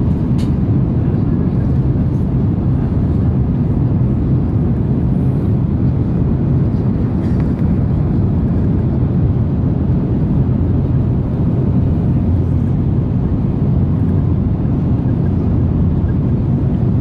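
Steady low rumble of engines and airflow inside the cabin of an Airbus A330-200 airliner as it descends.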